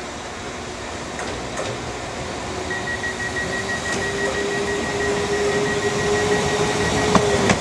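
A train running at a station platform: a steady rumble that grows louder, with a held, even whine from about three seconds in until just before the end, and a sharp knock at the close.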